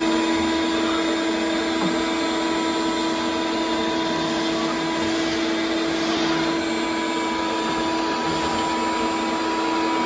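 Vacuum cleaner motor running steadily, a constant hum with a whine over it.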